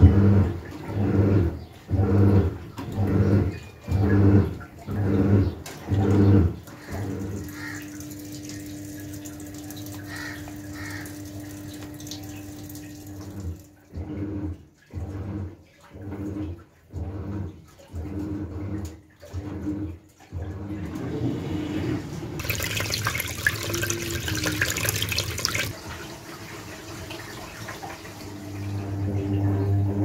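Haier top-loading washing machine running its wool cycle. The pulsator churns the wash in rhythmic pulses, then there is a steady motor hum, then more on-off churning. Water gushes into the tub, and near the end the drum begins to spin up with a rising hum.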